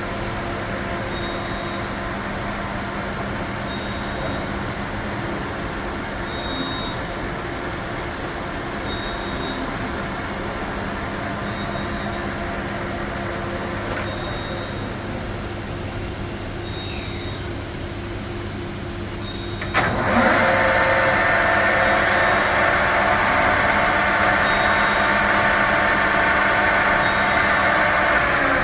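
Romi Profitmaster 13" x 40" engine lathe running: a steady mechanical hum from the spindle drive. About twenty seconds in it turns suddenly louder and brighter, then holds steady.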